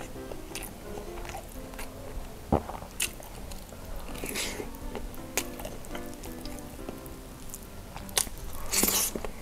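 Close-miked eating sounds: biting into and chewing a jumbo cheese sausage, with sharp crunches and wet chews, the loudest about two and a half seconds in and again near the end. Soft background music with sustained notes plays under it.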